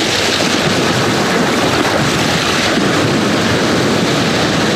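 Ocean waves washing, a steady rushing noise.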